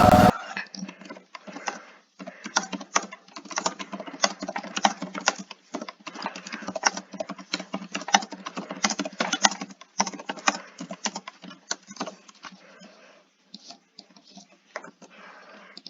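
Rapid, irregular clicking and tapping, several clicks a second, growing sparser and quieter over the last few seconds.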